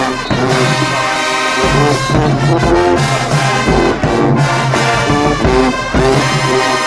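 High school marching band playing a brass-heavy tune, trombones and trumpets over a repeating low bass line and drum hits.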